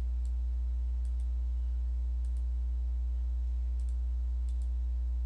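Sparse computer mouse clicks, about five, most of them in quick pairs, over a steady low electrical hum.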